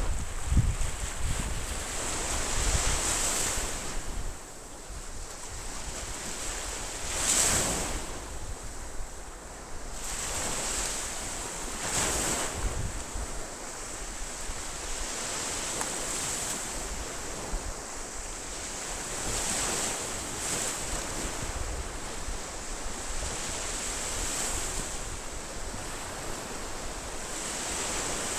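Ocean waves breaking on a shore, one swell washing in after another every few seconds, with wind buffeting the microphone.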